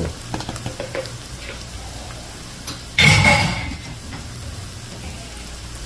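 Onions, garlic and hot pepper frying gently in oil in a pot, a faint steady sizzle, with a few small clicks near the start. About three seconds in, a single loud, sharp clatter with a brief metallic ring, like kitchenware being knocked or set down.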